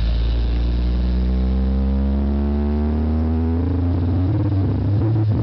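Bass-heavy electronic music played loud through a sound system with a 5-inch subwoofer. A deep bass tone sweeps steadily upward in pitch for about four seconds, then breaks into a pulsing bass beat.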